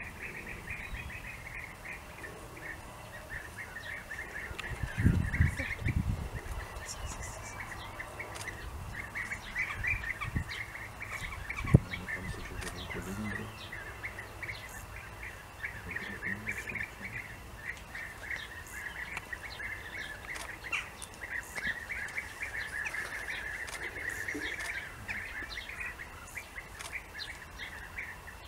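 European bee-eaters calling, a continuous chatter of short overlapping calls. A few low thumps come about five seconds in, and a single sharp knock near the middle.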